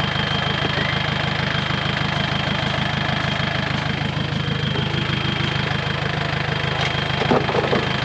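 Modified off-road jeep's engine idling steadily at an even level, with a thin steady high-pitched whine over it; a brief irregular sound comes about seven seconds in.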